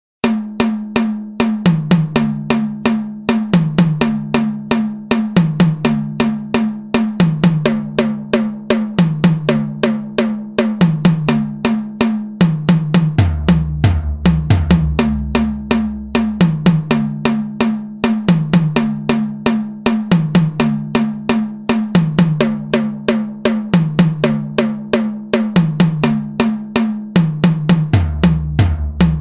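Background music: a fast drum beat with snare and bass drum over a bass line that steps between a few low notes.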